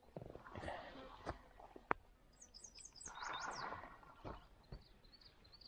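A songbird gives a quick run of high chirps a couple of seconds in, with fainter chirps near the end. A few sharp clicks and a brief rustle from handling the fishing rod and reel are mixed in.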